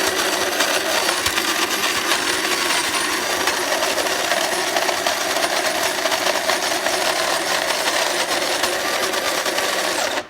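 Secura SCG-903B electric burr coffee grinder running on a fine grind setting: a steady motor hum under a dense crackle of coffee beans being crushed. It shuts off abruptly near the end as its automatic timer ends the grind cycle.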